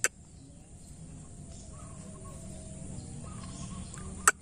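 Faint wavering bird calls over a low steady outdoor hum, with a sharp click at the start and another near the end.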